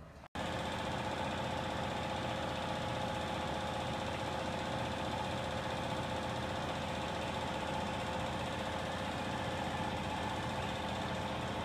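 A motor-driven workshop machine running steadily with a constant hum over a noisy mechanical whir, starting abruptly about a third of a second in.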